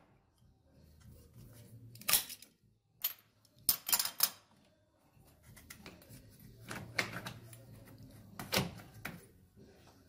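Scattered sharp clicks and knocks of a screwdriver and hose clamps while a transmission-cooler hose is worked onto its fitting, over a low steady hum.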